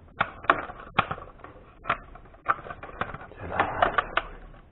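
Irregular sharp clicks and taps of plastic parts as the opened housing of a Braun 4235 juicer is handled, with a short rustle near the end.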